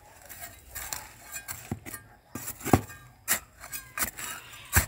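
Small metal trowel digging and scraping into dry, compacted substrate full of roots and stones, giving about six sharp, irregular clinks and scrapes.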